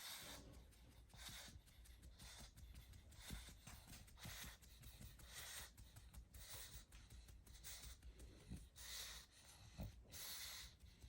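A pug breathing in its sleep: faint, snuffly breaths about once a second, each a short hiss.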